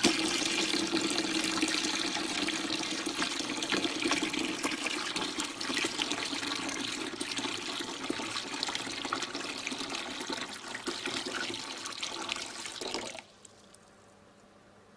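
Water running steadily into a tapered tank, filling it and raising the level under a float; the flow cuts off suddenly about two seconds before the end.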